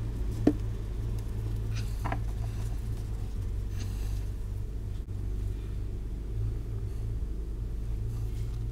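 A steady low rumble with a hum under it, from an unseen machine, starting suddenly. A click about half a second in and a brief rustle about two seconds in come from fibreglass heat wrap being wound around a motorcycle exhaust pipe.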